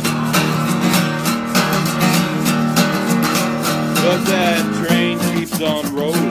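Steel-string acoustic guitar strummed in a steady, driving rhythm of chords.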